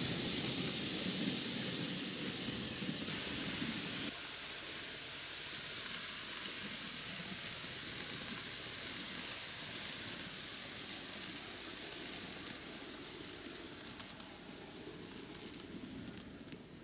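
Microace N-gauge Keio 9000 series model train running on curved TOMIX plastic track: the wheels' rolling rattle, a steady hiss that drops about four seconds in and then fades slowly as the train moves away.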